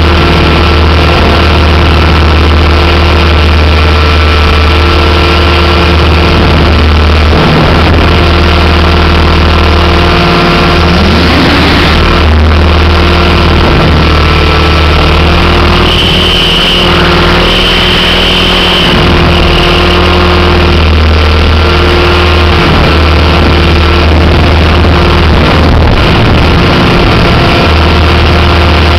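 Thunder Tiger MiniTitan E325 electric RC helicopter in flight, heard from a camera carried on the model: its motor and rotor make a loud, steady whine over a heavy low hum, the pitch holding with brief dips.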